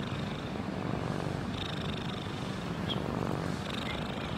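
Domestic cat purring steadily, a low, finely pulsing rumble with a faint hiss recurring about every two seconds.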